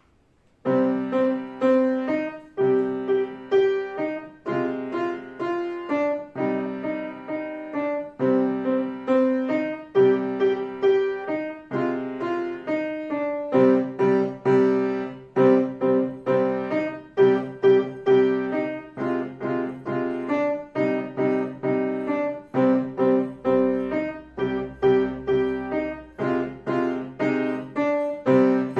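Solo grand piano playing a simple piece in a steady rhythm, starting about a second in. The notes come in short phrases separated by brief breaks.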